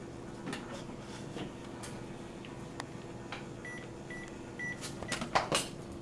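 Microwave oven beeping three times, evenly spaced about half a second apart, the signal that the cooking cycle has finished. It is followed near the end by a few loud clicks and clatter, like the door being opened.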